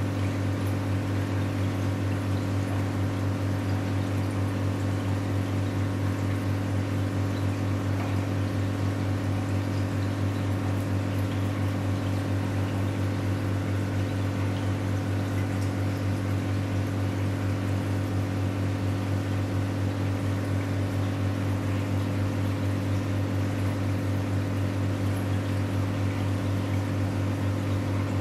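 Aquarium pump humming steadily, with the bubbling of air stones in the tank.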